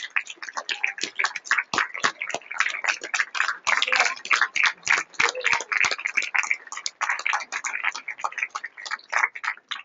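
Audience applauding, with many separate hand claps and a few voices mixed in.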